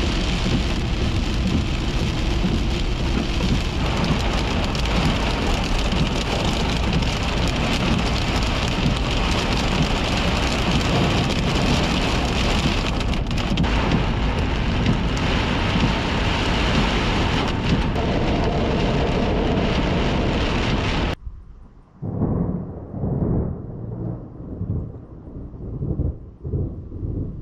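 Torrential rain drumming on a car's windshield and roof in a cloudburst, a loud, dense, steady hiss. About 21 s in it stops abruptly, and low rolling thunder rumbles follow in several swells.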